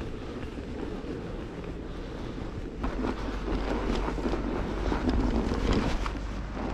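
Wind buffeting the microphone in a steady low rumble. It grows louder about three seconds in, with irregular crackling over it.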